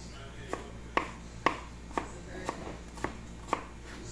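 Kitchen knife chopping green mango into small cubes on a cutting board: a sharp knock of the blade on the board about twice a second, in a steady rhythm.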